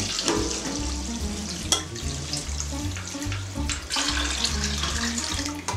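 Warm water (45 °C) poured in a steady stream from a stainless steel pot into a tray of whey and cheese curd to wash the Gouda curd, with a single knock a little under two seconds in. Background music plays underneath.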